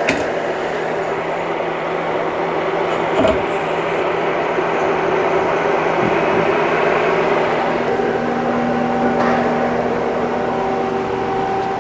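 Steel spindle liner tube being handled and slid into a CNC lathe spindle: a few metal knocks and clinks, the loudest near the start and about three seconds in, over a steady mechanical hum, with further steady tones joining about eight seconds in.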